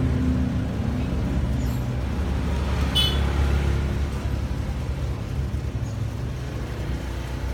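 Low, steady engine-like rumble that slowly fades, with one short sharp click about three seconds in.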